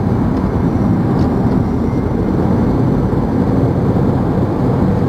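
Steady engine and tyre noise of a car driving along a country road, heard from inside the cabin.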